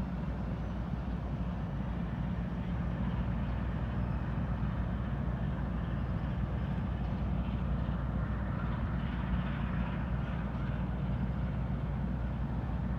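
Steady low rumble of the car ferry Kogane Maru's engines as the ship leaves port.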